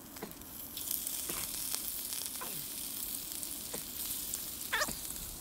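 Sizzling over a campfire: a steady hiss with scattered crackles and pops, starting about a second in.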